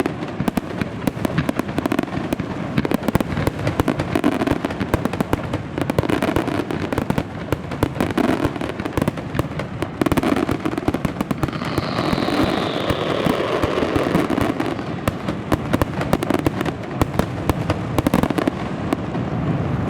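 Fireworks display firing continuously: a dense, rapid barrage of bangs and crackling, with a falling whistle about twelve seconds in.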